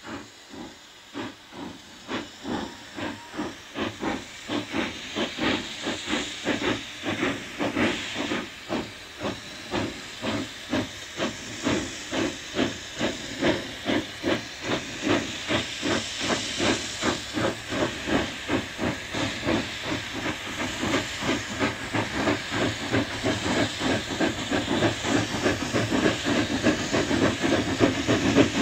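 Two steam locomotives double-heading a train, their exhaust chuffing in a rapid, even beat that grows steadily louder as they approach.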